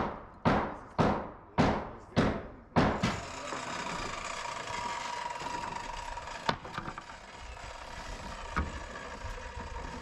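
Hammer blows, about two a second, stopping about three seconds in. A steady rushing noise follows, with two single knocks.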